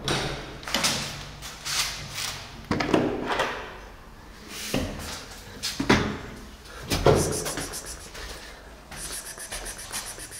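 A series of hard plastic clunks, knocks and rattles, one every second or so, from a plastic pet carrier being handled and set down, along with the knock of a door.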